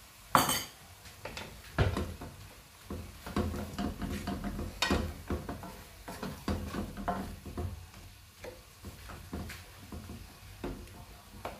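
Wooden spatula stirring and scraping through a tomato and cuttlefish sauce in a metal frying pan, with the sauce sizzling gently as it sautés. A loud sharp knock about half a second in.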